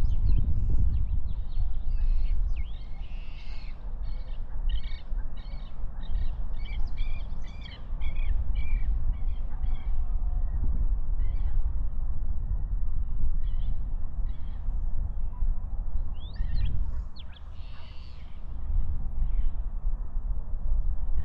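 Several birds calling, with many short high chirps and trills, densest in the first half and again near the end, over a strong, uneven low rumble.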